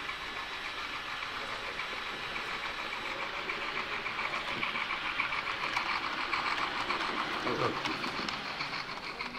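H0 scale model steam locomotive and passenger coaches rolling along the layout track: a steady running rattle with a fast, even ticking rhythm. It grows louder as the coaches pass closest, about seven to eight seconds in, then eases off.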